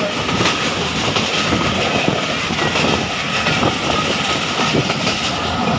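Millat Express passenger train running, heard from on board: a steady, loud rushing rumble of wheels on rails, with faint scattered clicks.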